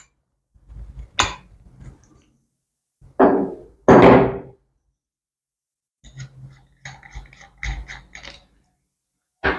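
Steel adjustable wrench loosening the cartridge nut of a lever mixer tap, with a sharp click about a second in. Then come two heavy thunks as the wrench is set down on the table, a little after three seconds and at four seconds. Faint clicking and rattling follow as the nut is unscrewed by hand.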